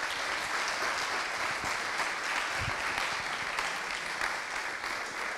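Audience applauding, a steady wash of many people clapping.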